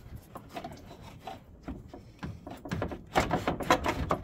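Old radiator knocking and scraping against the surrounding parts as it is wiggled up and out of the engine bay. Scattered light knocks at first, then louder, denser clattering and rubbing about three seconds in.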